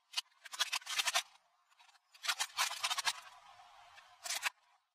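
Plastic toy monster truck cracking and crunching under a car tyre: three bursts of rapid snapping crackles, the first two about a second each and the last short, near the end.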